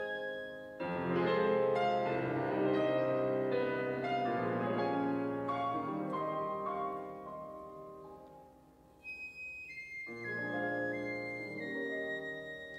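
Classical-style background music led by piano. The notes fade low about eight seconds in, and a new phrase begins about a second later.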